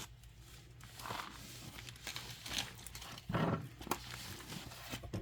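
Wrapping on a boxed craft kit crinkling and rustling as it is pulled open by hand, with a dull bump about three and a half seconds in.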